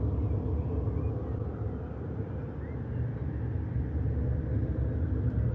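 Steady low rumble with a few faint short chirps above it.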